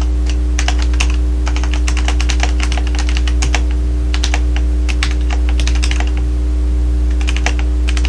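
Typing on a computer keyboard: a quick, irregular run of key clicks with a short pause about six seconds in, over a steady low electrical hum.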